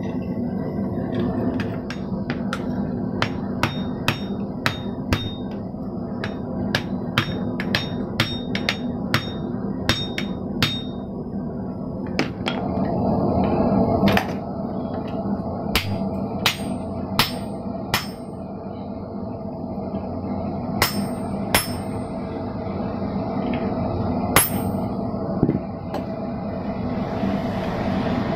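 Hand hammer striking a quarter-inch mild steel plate on an anvil, dishing it into a candle cup: a quick run of ringing blows about two a second, then sparser single blows from about twelve seconds on. A steady rushing noise runs underneath.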